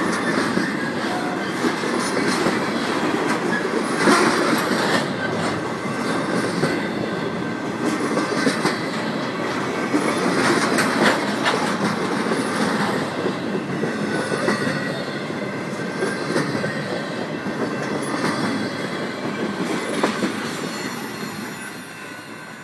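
BNSF intermodal freight train of trailers and containers on flatcars rolling past: a steady rumble of steel wheels on rail with repeated clicks over the rail joints and some light wheel squeal, fading near the end.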